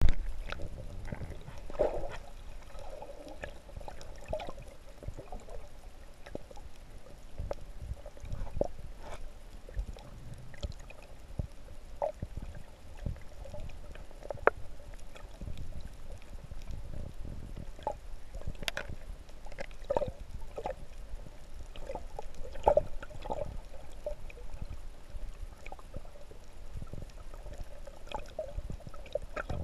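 Underwater ambience picked up by a submerged camera: a muffled, low rumble of water with many short clicks and pops throughout.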